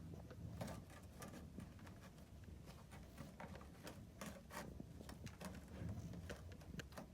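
Faint, irregular light clicks and taps over a low background hum, several a second at times.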